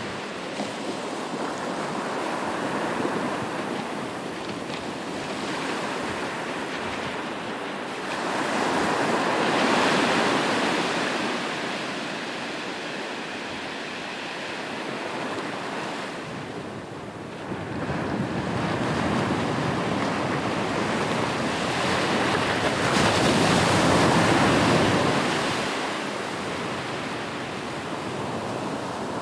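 Ocean waves breaking on a beach, a continuous rushing surf that swells twice with bigger waves, about a third of the way in and again past the middle.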